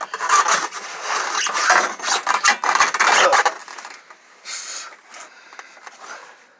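Scraping and rubbing of a spare tire and its hinged under-body carrier on a 2010 Mitsubishi Outlander as they are pushed back up into place. Dense scraping with small knocks for about the first three and a half seconds, then a few quieter scrapes.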